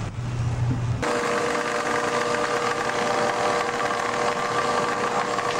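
A low engine drone for about the first second, then a steady mechanical whine with several held tones from the deck line hauler as it pulls up a black cod trap line.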